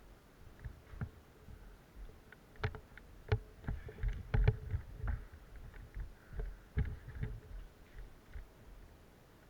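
An irregular run of knocks and thumps, some sharp, most dense and loudest in the middle and quieter toward the end.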